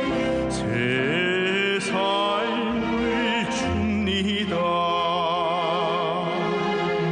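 Music: a slow melody with strong vibrato and notes that slide upward into place, over sustained accompaniment.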